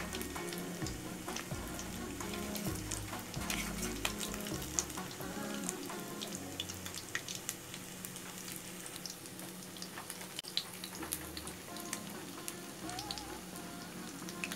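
Maggi-noodle-coated potato fingers deep-frying in hot oil in a kadai: a steady sizzle with scattered crackles and pops. A wire spider strainer is moved through the bubbling oil against the food.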